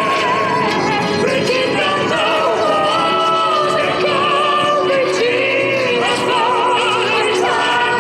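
Live singing with band accompaniment: a voice holding long notes with a wide vibrato, a second voice line moving in parallel below it, over steady instrumental backing.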